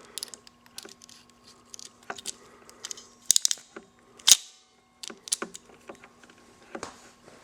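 Hand-held coax compression tool being worked on an RG6 cable's F-connector: a series of sharp plastic and metal clicks and snaps, the loudest about four seconds in as the tool is squeezed shut.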